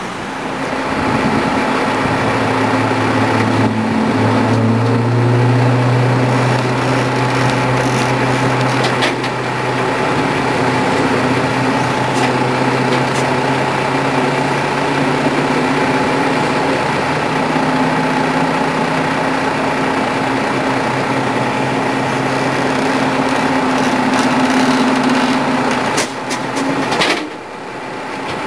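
Machinery running with a steady hum and whine, the pitch shifting upward about four seconds in, while a steam traction engine is loaded onto a low-loader trailer. A few sharp clanks come near the end.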